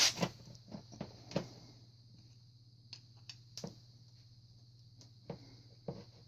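Scattered small clicks and knocks of hand tools against metal fork parts while the parts are pried out, the loudest at the very start, over a steady low hum.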